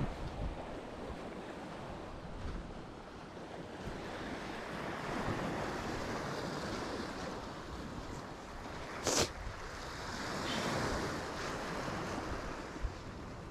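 Sea waves washing ashore in slow swells, with wind buffeting the microphone. One sharp knock about nine seconds in.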